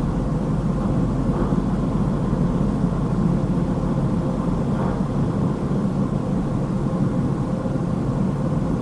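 Steady low rumble of a Dodge Charger idling, heard inside the car's cabin.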